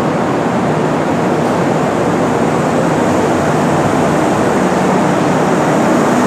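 Kintetsu 6020-series electric train pulling slowly into a station platform, a steady rumble and hiss of wheels and running gear.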